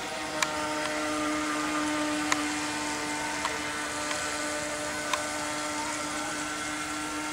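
Small electric motor of a toy remote-controlled speedboat whining steadily at an even pitch as the boat runs across the water. A few sharp clicks sound over it.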